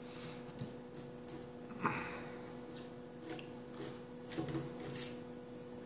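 Faint scattered clicks and taps of a lever-action rifle's metal parts being handled during disassembly, with one light knock and a short ring about two seconds in. A steady low hum sits underneath.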